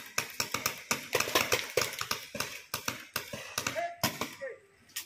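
Paintball markers firing in rapid, irregular pops, several a second, that thin out after about three seconds. A voice calls out briefly near the end.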